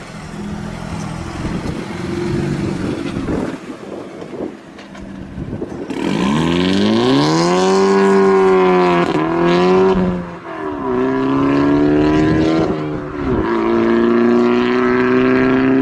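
A car engine with a loud exhaust: a low rumble for the first six seconds, then revved hard, its pitch climbing and held high, dropping briefly three times and climbing back each time.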